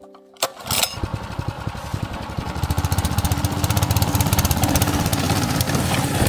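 A small engine starting with a click and then running with a rapid, even pulse that gets louder about two seconds in.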